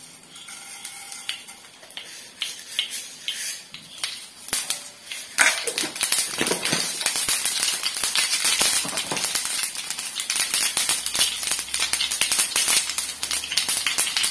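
Mustard seeds tipped into hot oil in a frying pan about five seconds in, then spluttering in the oil: a dense, steady crackle of popping seeds over a hiss.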